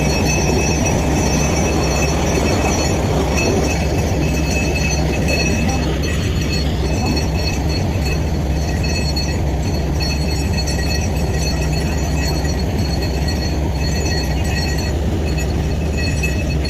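Borewell drilling rig running steadily: a loud, even machine noise with a low hum under several constant high whining tones.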